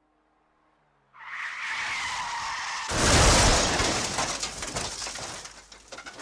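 Car tyres screeching in a skid for nearly two seconds, then a sudden loud hit followed by rattling, crackling noise that dies away over about three seconds.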